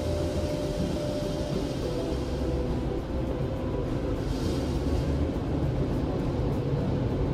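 Car wash blower dryers running over the car, heard from inside the closed cabin as a steady low rumble with a hiss.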